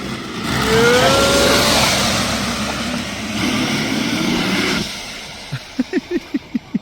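A rider going down a roller slide, the metal rollers rumbling loudly for about four seconds, with a rising shout from the rider near the start. The rumble stops and a quick run of about six short vocal sounds follows near the end.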